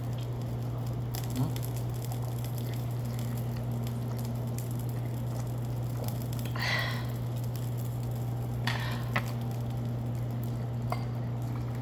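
A steady low hum, with a few faint clicks and a short hiss about six and a half seconds in.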